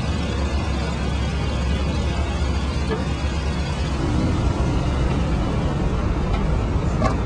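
Motor traffic running steadily, a continuous low rumble of engines and tyres, with a short click near the end.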